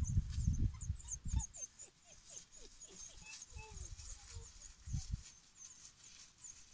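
African wild dogs squeaking, with a run of short falling squeals a couple of seconds in over a fast, high repeated chirping. Low rumbling bumps come in the first second or so and again about five seconds in.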